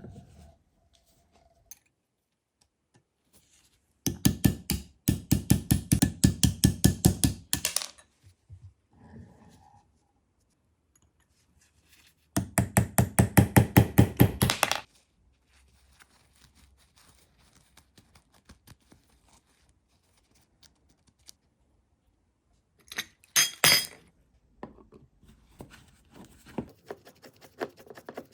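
Rapid, evenly spaced knocking in two runs of a few seconds each, with a short clatter near the end.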